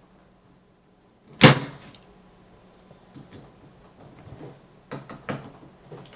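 A loud metallic clunk of a hard drive being handled against a computer case's steel drive bay, followed by a few lighter clicks and taps.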